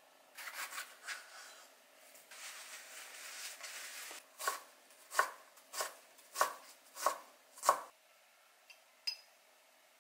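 Chef's knife chopping onion on a wooden cutting board: soft scraping and rustling at first, then six sharp chops a little over half a second apart. Two light clicks near the end.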